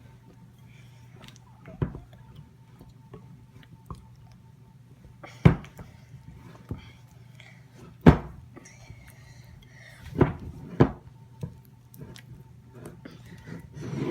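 A spoon stirring thick, hard-to-stir fudge mixture of melted chocolate chips and sweetened condensed milk in a bowl. The spoon knocks sharply against the bowl at irregular moments, a handful of times.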